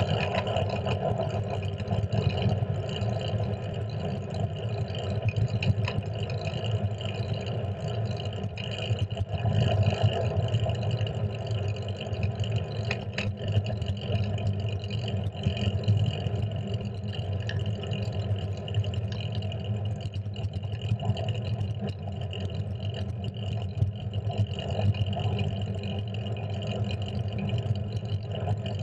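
Steady wind rush and road rumble picked up by a GoPro mounted on the handlebars of a moving fixed-gear bicycle.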